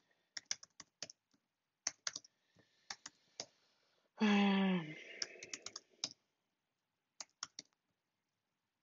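Computer keyboard typing in quick runs of keystrokes with short pauses between them. A brief hummed vocal sound falling in pitch comes about four seconds in.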